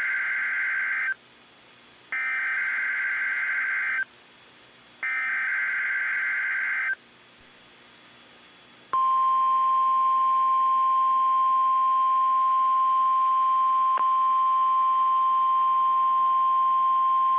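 NOAA Weather Radio alert over a weather radio receiver: three screechy bursts of SAME digital header data, each about two seconds long and a second apart. Then, about nine seconds in, a single steady warning alarm tone near 1 kHz (the 1050 Hz NWR tone) begins and holds. This is the start of the alert for the statewide tornado drill that doubles as the Emergency Alert System required monthly test.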